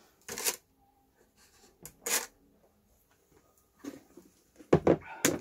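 Plastic tub being handled: a few short scrapes and rustles, then a louder cluster of knocks and scrapes near the end.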